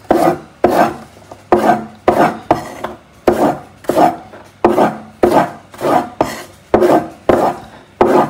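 Large kitchen knife dicing raw potato slices on a wooden chopping board: a steady run of about fourteen cuts, roughly two a second, each a sharp knock of the blade on the board trailing off into a short scrape.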